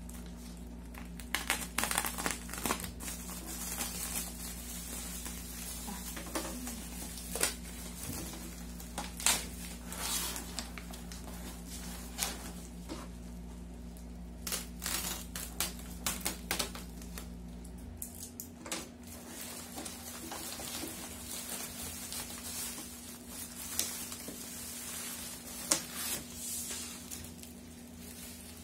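Plastic bubble wrap crinkling and rustling in many short strokes as it is cut open and pulled off boxed items, with a few light knocks. A low steady hum underneath cuts off suddenly about two-thirds of the way through.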